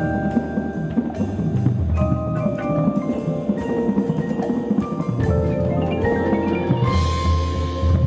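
Indoor percussion ensemble playing: marimbas and vibraphones ring out pitched notes over low bass-drum hits, with a cymbal wash near the end.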